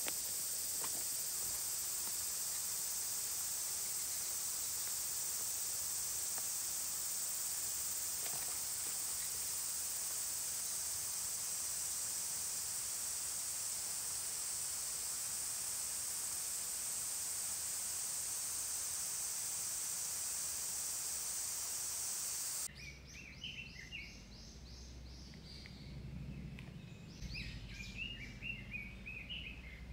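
A steady, high-pitched woodland insect chorus for most of the stretch. It cuts off abruptly about 23 seconds in, giving way to birds calling in short repeated chirps over a low rumble.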